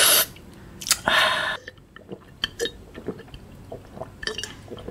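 A person drinking water from a glass jar: two loud breathy rushes of air near the start, the second about half a second long, then small wet mouth clicks and swallows as he sips again.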